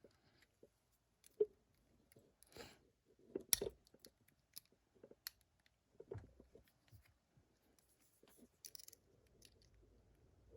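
Small metal tools clicking and scraping against a stiff retaining clip on a lock cylinder as it is pried at, in faint scattered clicks with a few sharper snaps and short scrapes.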